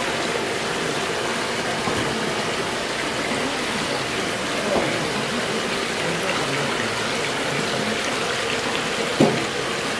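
Water in an aerated koi holding tub making a steady rushing splash, with one short, louder knock near the end.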